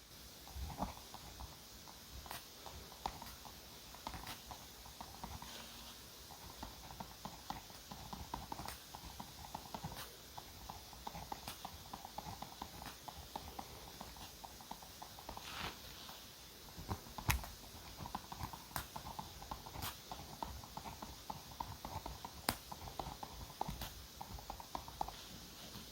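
Close-up paper and stationery handling: scratchy rubbing on paper with scattered sharp clicks and taps, one louder tap about two-thirds of the way through.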